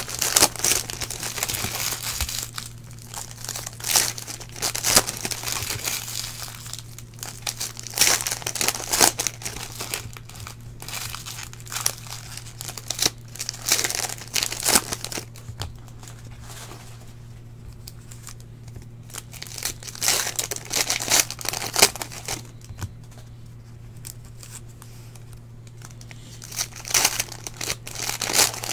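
Plastic wrappers of Panini Prizm football card packs being torn open and crinkled by hand, in irregular bursts with short pauses between them.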